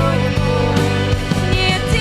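Worship band music with a rock feel: a sustained bass under drum hits several times a second, with held pitched notes above.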